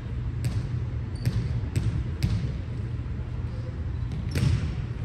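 Volleyball struck and bouncing: a handful of sharp smacks of the ball, the loudest about four and a half seconds in, over a steady low background rumble.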